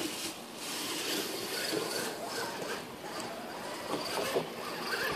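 Electric radio-controlled scale truck driving over dry leaf litter: the whine of its motor and gears, with the tyres rustling and crunching through the leaves.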